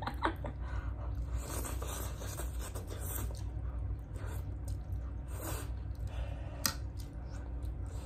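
Spoons scraping on plates and wet chewing as pasta is eaten quickly, over a low steady hum, with one sharp click of a spoon against a plate about two-thirds of the way through.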